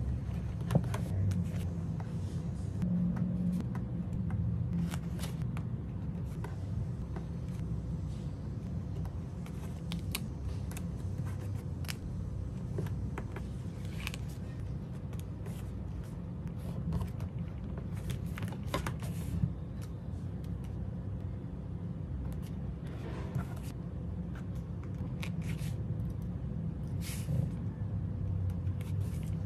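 Sticker sheets rustling and metal tweezers clicking and tapping as paper stickers are peeled off and pressed onto planner pages, in scattered short handling sounds over a steady low hum.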